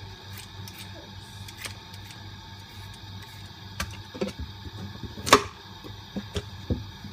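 A vegetable peeler scraping off a green vegetable's skin in a few faint strokes, then a handful of sharp knocks of a kitchen knife and vegetable on a plastic cutting board, the loudest about five seconds in.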